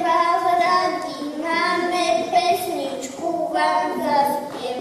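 Young children singing a song into a microphone, a slow tune of long held notes.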